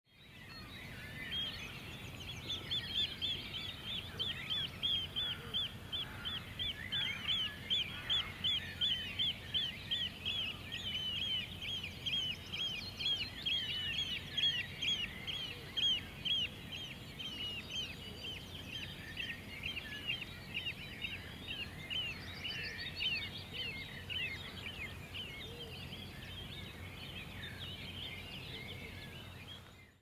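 A small bird repeating a short chirp about three times a second, over a steady low rumble of outdoor ambience. The chirping thins out and fades after about twenty seconds.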